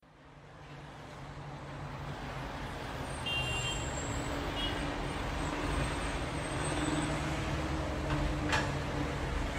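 Road traffic at a junction, a steady rumble of vehicle engines idling, fading in over the first couple of seconds. A single sharp click comes near the end.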